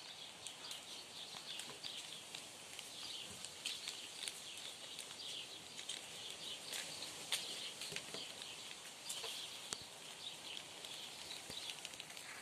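Faint outdoor background of small birds chirping, with scattered soft ticks and crinkles as gloved hands handle a small seed packet and sprinkle seeds onto a paper towel.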